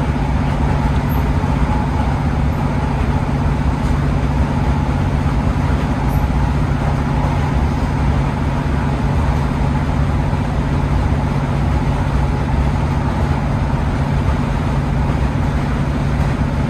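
Class 150/2 diesel multiple unit's underfloor Cummins diesel engine running steadily, a constant low drone heard from inside the passenger saloon.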